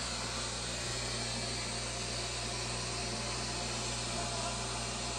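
Aquarium equipment running: a steady low hum under an even hiss.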